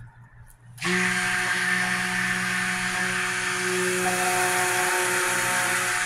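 Electric stick blender switched on about a second in and running steadily, submerged in a bucket of oils and lye water, blending them into soap batter.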